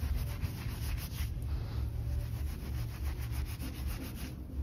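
Dry chicken feed being rubbed, crumbled and stirred by hand, a continuous gritty rustling made of many small rapid scrapes.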